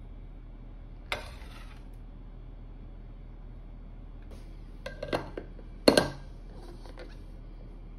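A metal spoon scooping dashi powder from a tray into a jar, with a few scattered clinks and scrapes of spoon on the containers. A cluster of small clinks comes about five seconds in, then the loudest, sharper knock just before six seconds.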